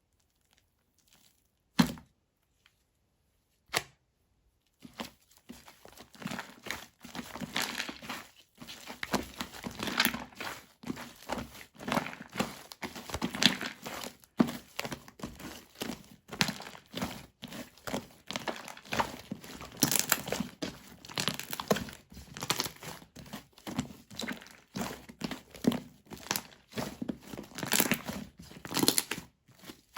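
Hands kneading and pulling slime, making a near-continuous crackling, crinkly handling sound. It is preceded by two sharp clicks near the start.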